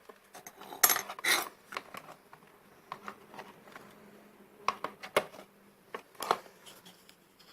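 Handling noise from small hard objects on a workbench: scattered clicks and light clatter, loudest about a second in and again near the end.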